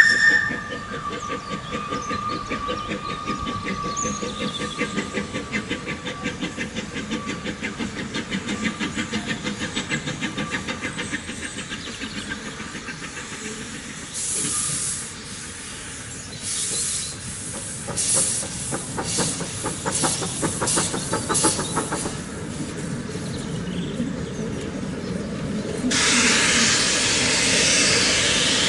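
Narrow-gauge steam locomotive at work: an even, rhythmic beat for the first ten seconds or so, then short bursts of hissing steam, and near the end a loud, steady hiss of escaping steam.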